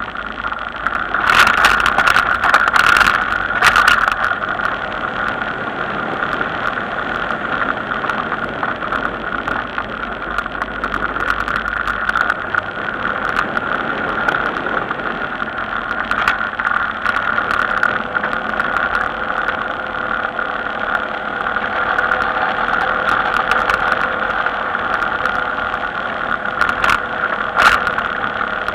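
Steady wind and road noise on a camera mounted to a moving vehicle on a paved country road, with rattles and knocks over a rough, gravelly patch about one to four seconds in.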